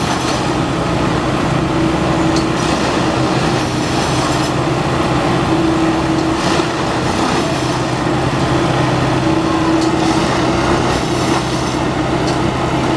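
Railway track tamping machine (Plasser & Theurer Unomatic 09-16 CSM) working: its engine and hydraulics run steadily, with a low hum, a higher whine that swells every few seconds, and a few sharp clanks.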